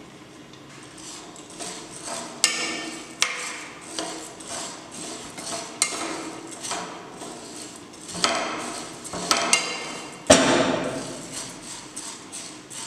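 Dry split moong dal being stirred in a nonstick pot with a spatula while it roasts: the lentils rattle and scrape across the pan, with several sharp knocks of the spatula against the pot, the loudest about ten seconds in.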